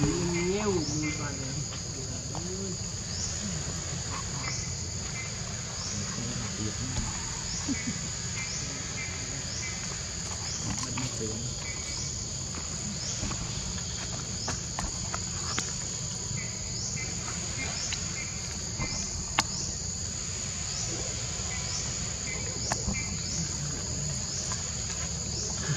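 Steady, high-pitched chorus of insects, pulsing regularly throughout.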